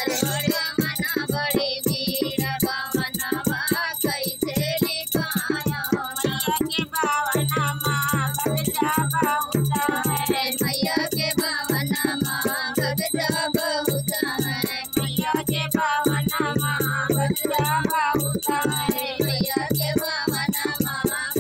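A group of women singing a devotional folk song together, accompanied by a fast, steady rattling percussion beat.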